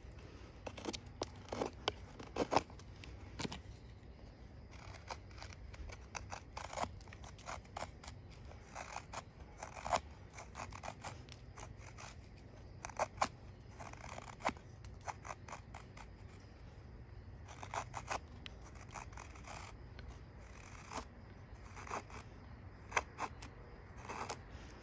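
A Helle Eggen knife with a Sandvik 12C27 stainless steel blade shaving curls down a stick of wood to make a feather stick: repeated short scraping strokes at an uneven pace, with brief pauses between runs.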